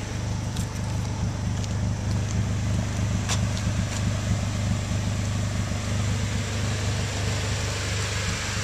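Honda Del Sol's swapped-in K20Z1 2.0-litre four-cylinder running steadily through a Skunk2 MegaPower R exhaust, heard at the tailpipe.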